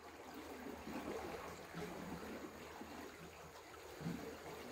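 Faint flowing river water, a quiet steady rush.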